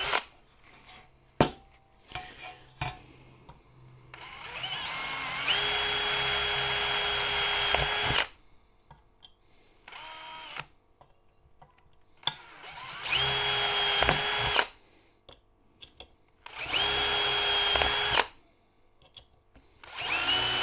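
Cordless DeWalt 18V drill with a 1.5 mm high-speed metal bit drilling out small holes in a sheet-metal equipment bin. It runs in stop-start goes: a steady whine that builds up over the first few seconds and then holds, followed by three shorter runs and one brief blip, with faint handling clicks in the pauses between holes.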